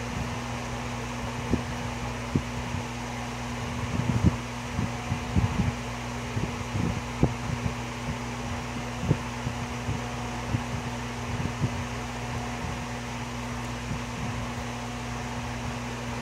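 Steady mechanical hum of workshop machinery, with scattered soft knocks and bumps as hands handle the wooden bowl on the lathe chuck while marking it with a pencil.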